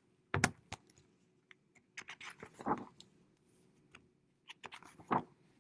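A few sharp taps and soft rustles from a picture book being opened and handled close to the microphone. The loudest tap comes about half a second in and another near the end, with rustling in between.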